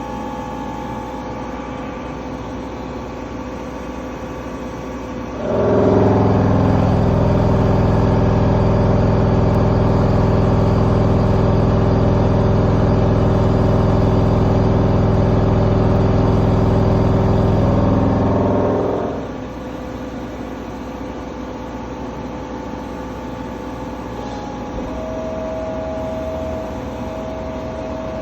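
A machine starts up about five seconds in, runs loud and even for about thirteen seconds, then winds down and stops over a steady background machine hum. A faint steady tone comes in near the end.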